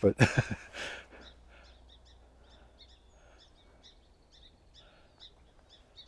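Song sparrows calling: scattered short, sharp chip notes, with an occasional thin whistled note.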